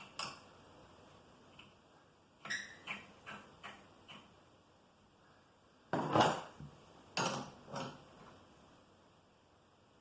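Metal hand tools clinking and clattering: a scattered series of sharp knocks, the loudest about six seconds in.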